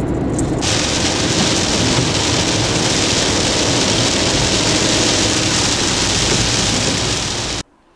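Rain on a moving car's windscreen and body together with tyre noise on the wet road, heard from inside the car: a steady hiss over a low rumble that starts about half a second in and cuts off suddenly near the end.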